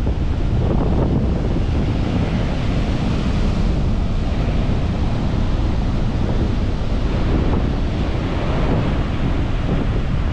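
Big sea waves breaking and washing up on a beach in a steady, loud surf noise, with wind buffeting the microphone in a low rumble.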